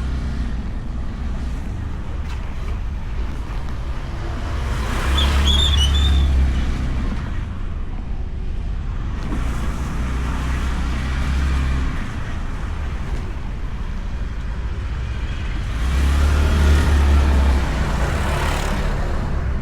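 Motorcycle riding in traffic, heard from a microphone inside the rider's helmet: a steady low wind and engine rumble that swells twice, about five seconds in and again near the end, with a brief high squeak about six seconds in.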